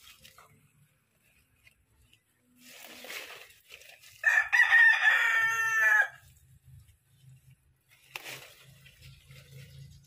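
A rooster crows once, about four seconds in, for about two seconds. Short leafy rustles come just before and a few seconds after it.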